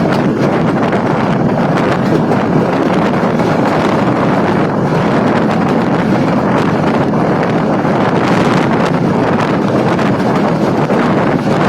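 Steady, loud rush of wind buffeting the microphone, mixed with the running noise of a moving passenger train.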